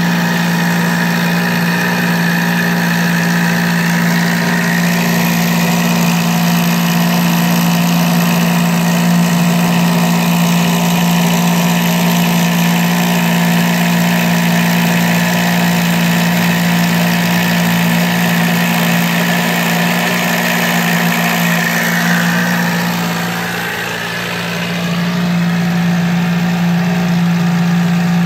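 CNC needle cutter running as it cuts 3 mm Depron foam: the motor-driven reciprocating needle gives a steady buzzing hum, with a higher machine whine that shifts in pitch as the head moves. The sound dips briefly about five seconds before the end.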